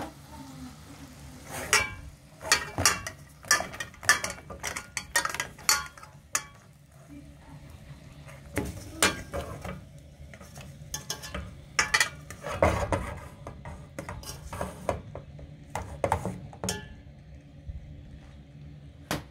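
A metal utensil knocking, scraping and clinking against a cooking pot while a pork roast is turned in it, in scattered clusters of sharp clicks.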